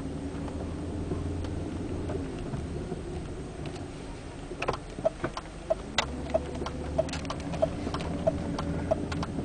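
Rhythmic creaking from a BMW 740i while driving: from about five seconds in, a short tick-and-squeak repeats evenly about one and a half times a second over a low, steady road and engine rumble. It is the creak the owner says comes especially when slowing down and has been getting worse.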